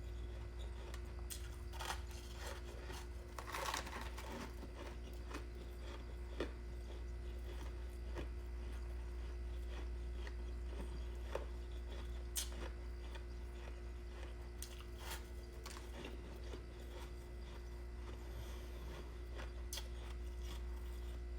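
Biting and chewing frozen ice dumplings, with scattered crunches and crackles of the ice, which is crunchy rather than soft. A steady low hum runs underneath.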